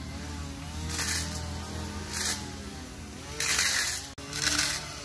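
Cordless battery-powered grass trimmer running, its whine wavering in pitch as the cutting head bites into a hedge, with several short hissy bursts as it shreds the leaves.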